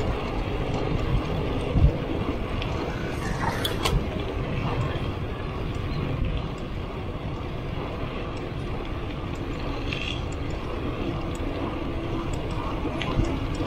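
Mountain bike rolling along a grooved concrete road: a steady rumble of tyres and wind noise, with occasional light clicks and rattles from the bike.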